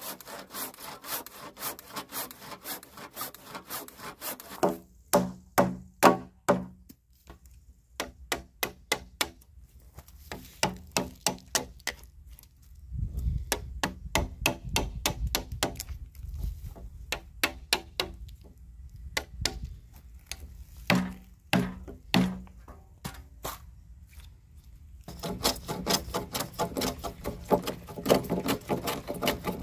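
Handsaw cutting across a pine/spruce timber beam in quick strokes, then a series of separate hammer blows on the beam, loudest a few seconds after the sawing stops, with a low rumble in the middle stretch. Near the end a hand plane shaves the beam in rapid strokes.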